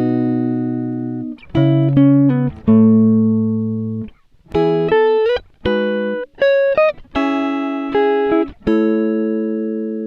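Background music: a guitar playing a slow run of ringing chords and single notes, each held a second or so and fading, with a few short sliding notes.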